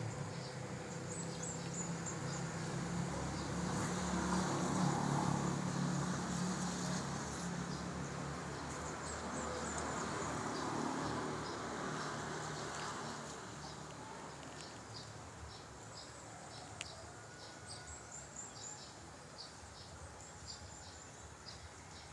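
A low engine hum swells over the first few seconds and fades away by about the middle, over steady high-pitched chirping that repeats about twice a second in the quieter second half.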